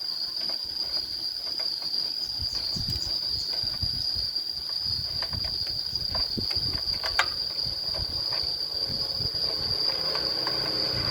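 Steady high-pitched insect chirring, likely crickets, with scattered light clicks and low knocks throughout.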